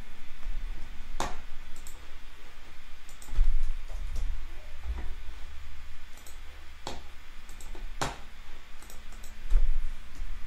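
Computer mouse clicks and keyboard keystrokes: three sharp clicks spread through, with lighter ticks between them, over a low rumble.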